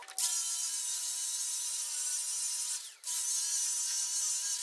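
Restorer hand-held power sander with a flap sanding wheel running steadily as it sands a new wood beam, knocking down the raised ridges and grain left by wire-brushing. It cuts out briefly about three seconds in, starts again, and winds down with a falling pitch near the end.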